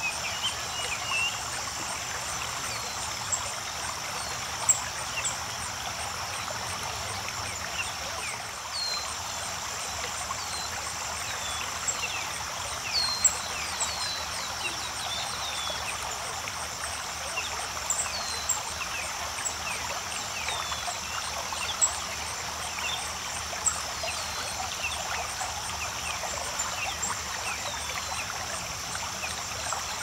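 A creek running steadily over a small cascade, an even rush of water, with many short bird chirps and twitters scattered across it, the sharpest of them standing out above the water.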